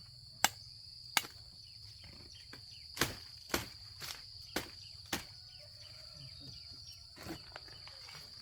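A steady, high insect drone from crickets or similar insects. Over it come about eight sharp knocks at irregular intervals.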